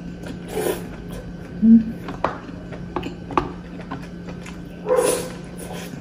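Close-miked mukbang eating sounds: chewing, a few sharp clicks of a wooden spoon against a wooden rice bowl, and a short low hum from the eater about two seconds in.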